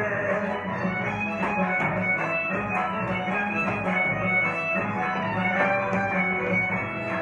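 Instrumental passage of a gato correntino folk song, led by plucked guitar, with no singing.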